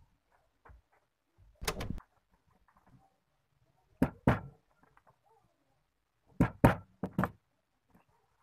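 Hammer striking rivets on a leather belt strap laid on a wooden board, setting them: sharp knocks coming in small groups, a quick cluster about two seconds in, a pair around four seconds and two more pairs around six and a half to seven seconds.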